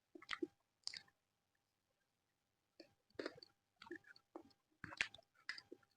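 A person chewing and smacking on a mouthful of paratha, in two bouts of short, wet mouth noises with a pause of about two seconds between them.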